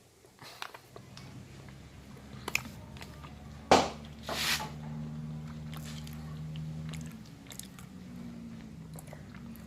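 Someone eating creamy fruit salad of dragon fruit and watermelon: soft bites and chewing with scattered small clicks, and one sharp click nearly four seconds in. A low steady hum runs for about three seconds in the middle.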